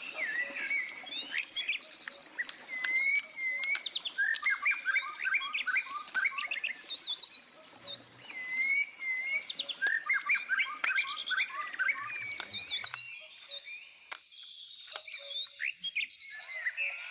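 Songbirds chirping and singing, several repeated trilled phrases and short whistled notes overlapping, with a lull about three-quarters of the way through before the calls pick up again.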